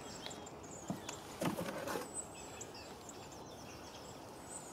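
Quiet outdoor ambience with small birds chirping now and then, and two brief knocks about one second and one and a half seconds in.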